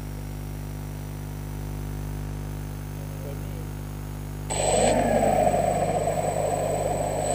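A steady electrical hum, then about four and a half seconds in the hexacopter's electric motors and propellers start up at once: a sudden, louder whirring with a high, steady whine above it, the motors idling before take-off.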